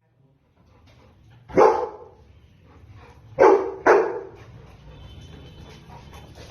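A dog barking: three loud, short barks, the first about a second and a half in and the other two close together near the middle.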